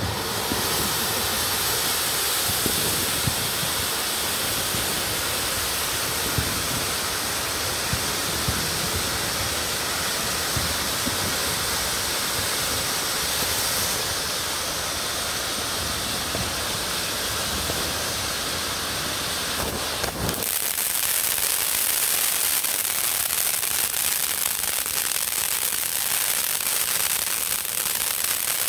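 Consumer firework fountains, Cutting Edge's Forget-Me-Not among them, spraying sparks with a continuous hiss and scattered small crackles. About two-thirds of the way through the sound changes to a thinner, higher hiss as the fountains shift.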